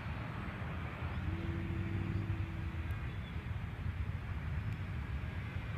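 Steady, gusty low wind noise on the microphone, with the faint hum of a distant radio-controlled model airplane's motor holding one pitch for a couple of seconds, starting about a second in.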